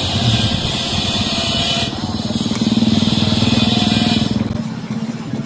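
A small engine running steadily with a fast, even pulse, and a high hiss that drops away about four seconds in.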